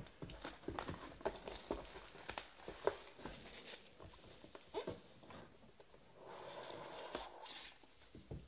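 Plastic shrink wrap on a cardboard trading card box being slit with a knife and pulled off, a run of small crackles and ticks. Near the end comes a steadier rustle as the box is opened.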